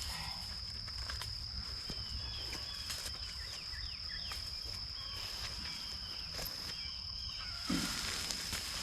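Steady high-pitched insect drone, with short falling chirps repeating over it. A brief rustle comes near the end.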